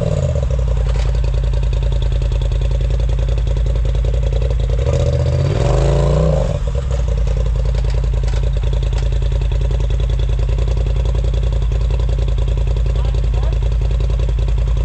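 Off-road vehicle's engine idling steadily close by, with a brief rev about five seconds in that settles back to idle.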